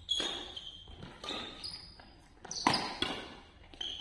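Badminton doubles rally: rackets striking the shuttlecock about once a second, the sharpest hit a little past halfway, with sneakers squeaking on the court floor between shots. The hits echo in the large hall.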